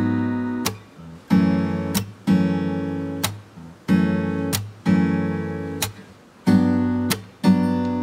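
Background music: acoustic guitar chords strummed about once a second, each chord ringing and dying away before the next.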